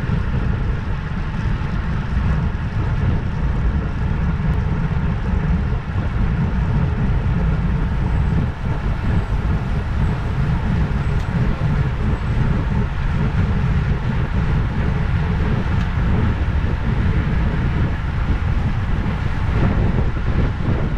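Wind rushing over an action camera's microphone on a road bike moving at about 22 mph: a loud, steady, deep rush with no break.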